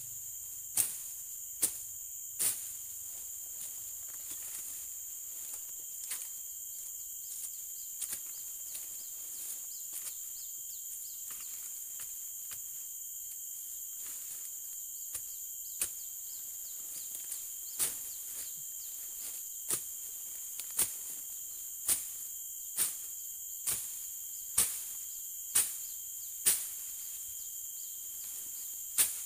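Machete strokes slashing through undergrowth and small stems: a few sharp chops near the start, then a steady run of strokes about one a second through the second half. A constant high-pitched insect drone runs underneath.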